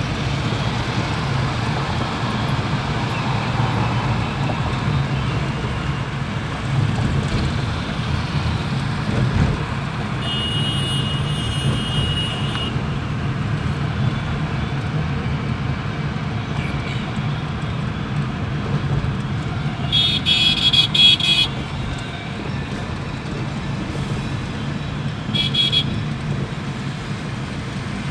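Steady low rumble of engine and road noise heard from inside a car crawling in heavy city traffic, with car horns sounding: one horn held for a couple of seconds about ten seconds in, a louder burst of rapid honks around twenty seconds, and a short toot a few seconds later.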